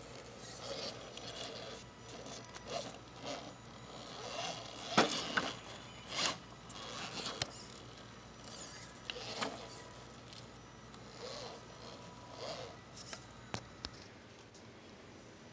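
Radio-controlled scale rock crawler clambering over rocks: irregular scrapes, clicks and a few sharper knocks of its tyres and chassis on stone over a faint steady whine, which stops near the end.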